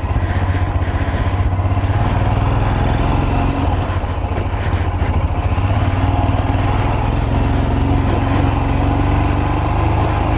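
Motorcycle engine running as the bike rides off, a steady low drone whose pitch rises a little about three seconds in.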